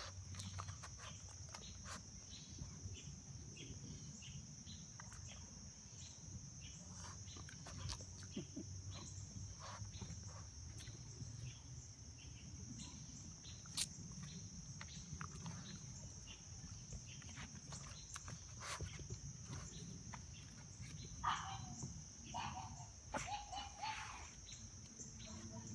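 Puppies giving faint squeaks and whimpers, mostly bunched together near the end, among small scuffling clicks.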